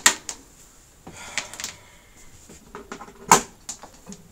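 Handling noise: a few sharp clicks and knocks, the loudest about three seconds in, with some light rustling around a second in.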